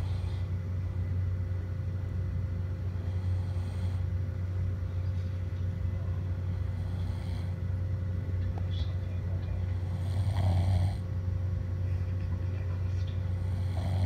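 A person snoring in slow breath cycles, about one snore every three and a half seconds, the loudest about ten seconds in, over a steady low hum.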